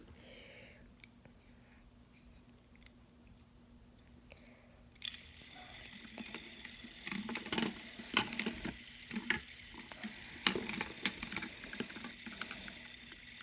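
Near silence, then about five seconds in a steady high hiss starts suddenly. Scattered clicks and taps follow as fidget spinners are handled and flicked into spinning.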